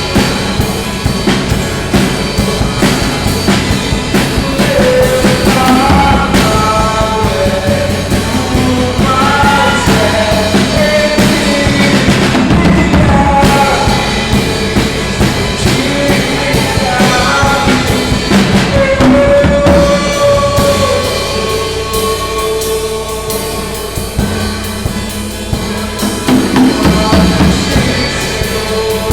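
Live worship song: a drum kit (Dolphin kit with Orion crash and hi-hat cymbals) keeping a steady beat under a sung melody and acoustic guitar, picked up by a phone's microphone. The singing is strongest in roughly the first two thirds, and the music gives way to longer held notes near the end.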